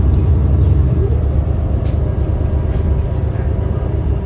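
Cabin noise inside a 2018 New Flyer XD40 diesel city bus driving at speed: a steady low drone of engine and road noise, easing slightly about a second in, with a few faint clicks.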